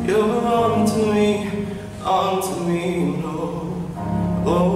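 A man singing into a microphone, in three phrases that begin about two seconds apart, each with held notes that bend in pitch.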